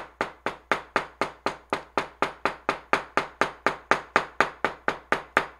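Small hammer striking plant material laid under a paper towel on watercolour paper, in a fast steady rhythm of about four blows a second, pounding it to press the plant's pigment into the paper.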